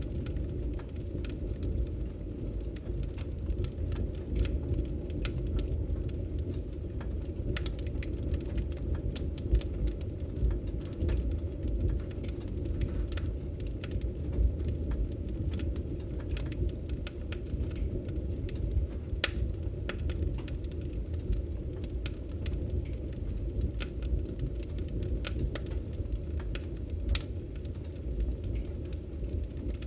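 Wood fire in a fireplace crackling steadily: a low rumble of flame with frequent irregular sharp pops and snaps.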